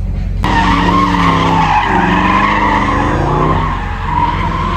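Tyres screeching as a white Jaguar XF saloon drifts, its engine revving up and down beneath the squeal. The screech starts abruptly about half a second in and holds on.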